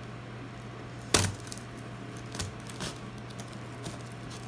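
Kitchen scissors working at the packing tape on a cardboard box: one sharp snap about a second in, then a few lighter clicks.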